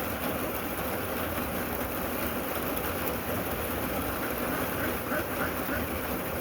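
Rain falling steadily, an even wash of noise with no breaks.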